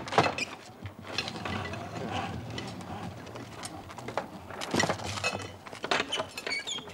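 Clanks and knocks of a smith working with iron and wood, with a mechanical rattle between the knocks. Short bird chirps come in near the end.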